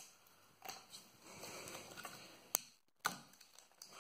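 Faint crinkling of clear plastic wrap with a few sharp clicks, one loudest about two and a half seconds in, as a film-wrapped Kevlar-and-epoxy plate is handled and lifted off a plywood board.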